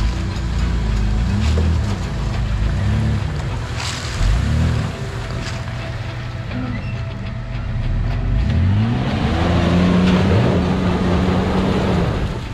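A 4x4 SUV engine revving up and down several times as it works, rising and falling in pitch, then held at a steady higher rev for the last few seconds.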